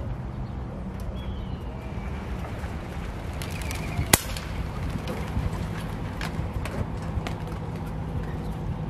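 One sharp air rifle shot about four seconds in, over a low steady hum, with a few faint bird chirps before it.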